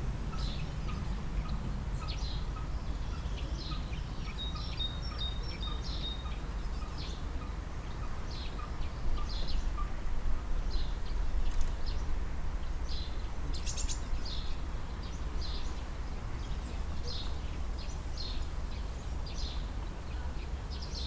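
Birds chirping again and again over a steady low rumble, with a run of evenly spaced peeps, about three a second, through the first half.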